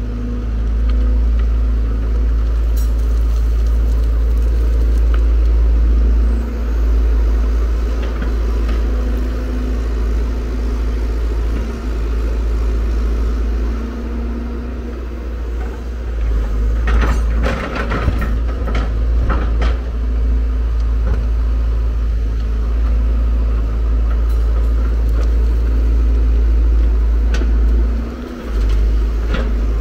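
Hyundai R170W wheel excavator's diesel engine running steadily under load as it digs and swings, with a burst of clattering knocks near the middle.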